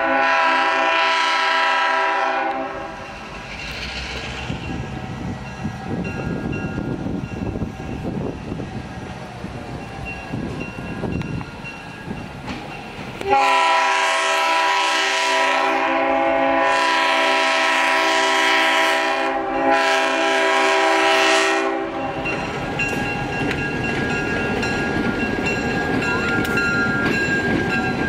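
EMD GP7 diesel-electric locomotive with a 16-cylinder EMD 567B prime mover passing, its air horn sounding a chord of several tones. The horn stops about two and a half seconds in. It blows again about thirteen seconds in and holds for around eight seconds. Between the blasts and after them, the engine runs and the wheels rumble on the rails.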